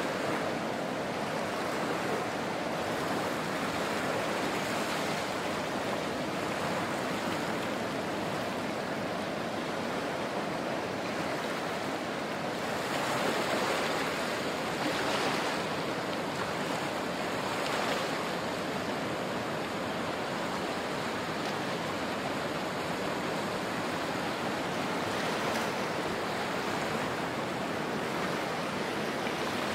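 Small sea waves washing over sand and breaking against rocks at the shoreline, a steady rushing wash with a few louder surges around the middle.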